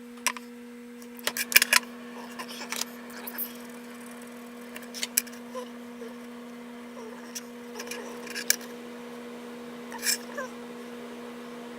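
Scattered sharp clicks and taps of hand tools being picked up and set down on a workbench while hinge positions are marked out, over a steady low hum.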